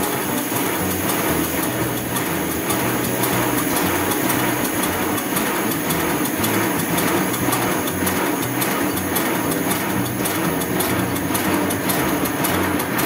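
Miniature live steam locomotive running light on a stand with its wheels lifted clear: a steady, rapid mechanical clatter from the spinning wheels and valve gear.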